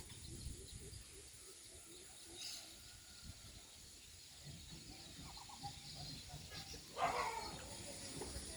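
A large flock of birds chirping and calling at once, faint, with many short overlapping chirps and one louder call about seven seconds in.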